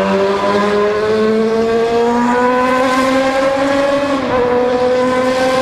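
Yamaha XJ6 motorcycle's inline-four engine running hard under acceleration, its pitch climbing slowly and steadily, with a brief small dip a little past four seconds in. It sounds inside a road tunnel.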